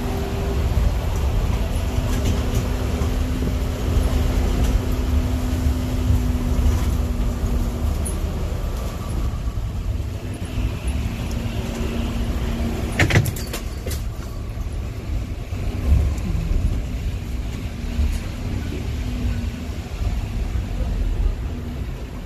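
Bus engine and road noise heard from inside the bus: a steady low rumble, with a humming tone for about the first eight seconds. A sharp clack a little past halfway, followed by a couple of lighter knocks.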